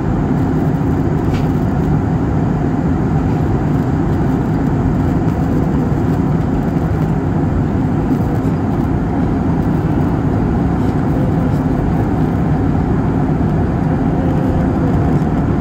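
Steady engine and airflow noise inside the cabin of an Airbus A320-family airliner in cruise flight.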